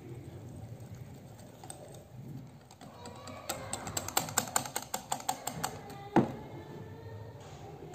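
Wire whisk beating a thick egg, yogurt and flour batter in a glass bowl: soft stirring at first, then rapid ticking of the whisk against the glass, about six ticks a second, for a couple of seconds past the halfway point, followed by one sharper tap.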